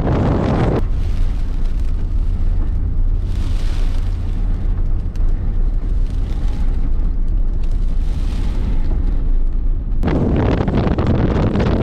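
Strong windstorm gusts buffeting the microphone: a loud, heavy low rumble. About a second in it turns duller, the higher hiss mostly gone, and near the end the full windy roar comes back abruptly.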